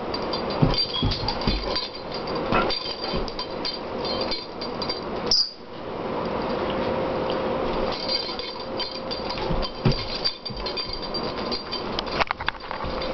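Scuffling, rustling and small clicks from a Great Dane puppy and a scarlet macaw playing on a blanket, over a faint steady hum, with a short high squeak about halfway through.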